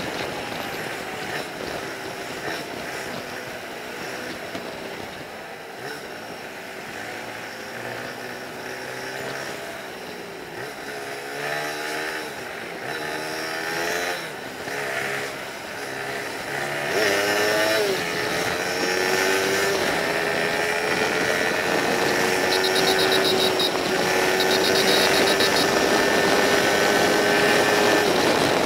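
Yamaha XTZ 250 Ténéré's single-cylinder engine running at highway speed over wind rush. Its revs rise and fall several times with throttle changes, then hold steady and climb slowly. A rapid high-pitched beeping comes in near the end.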